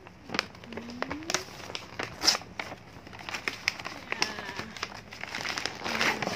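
Gift-wrapping paper crinkling and tearing in the hands as a present is unwrapped, with many irregular sharp crackles.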